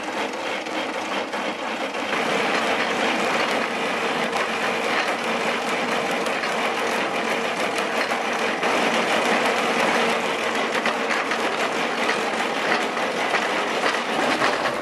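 Hydraulic drum cutter on an excavator's arm milling into a white-grey Main sandstone face: a dense, steady rattling grind of the cutter picks on rock over a steady machine hum. It grows louder about two seconds in.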